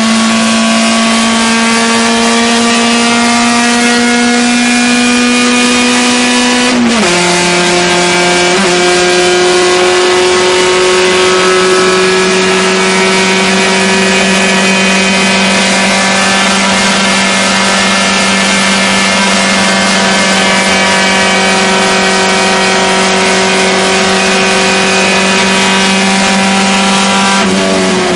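Fiat 128 racing car's 1100 cc four-cylinder engine at full throttle, heard from inside the cockpit. The revs climb slowly, fall sharply with an upshift about seven seconds in, then climb slowly again, and dip once more right at the end.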